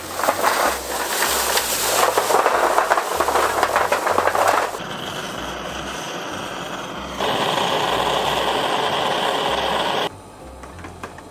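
Charcoal briquettes poured from a plastic bag into a metal charcoal grill, a dense clatter for the first four to five seconds. Then a handheld gas torch hisses steadily as it lights the charcoal, getting louder about seven seconds in and stopping suddenly near the end.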